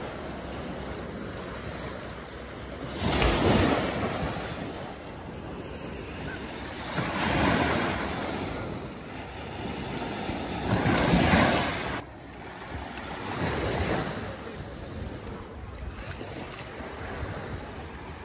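Small waves breaking and washing up a sandy shore, the surf swelling and falling back about every three to four seconds.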